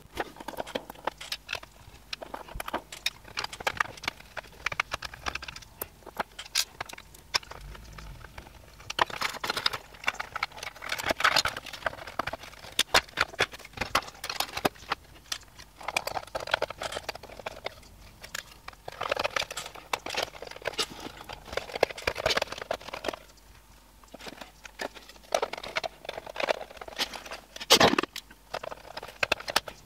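Irregular clicks, taps and light clattering as hands fit circuit boards, cables and plastic internal parts back into an open projector case, with one sharper knock near the end.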